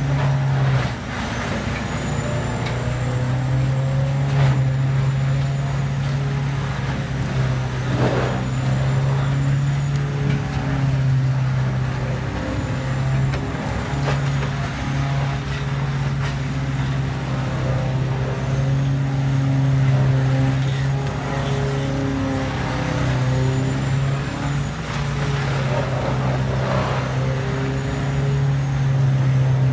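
Precision Husky Progrind 5100 tub grinder running under load, its CAT 3412E diesel engine holding a steady low drone while the mill grinds brush and logs. A few short knocks and crunches break through as wood is fed in.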